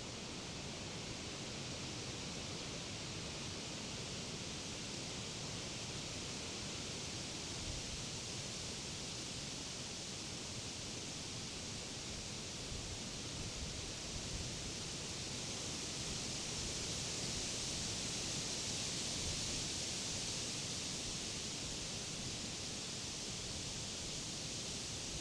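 Wind in the leaves of summer trees: a steady rustling hiss that swells gently in a gust about two-thirds of the way through.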